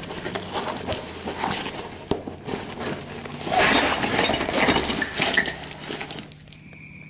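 Hands rummaging through a soft fabric tool bag: cloth and plastic bags rustling and small metal tool attachments clinking, busiest in the middle and dying down near the end.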